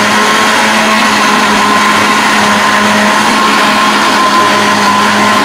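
Electric countertop blender running steadily at full speed, puréeing cooked spinach with eggs: a loud, even motor whine.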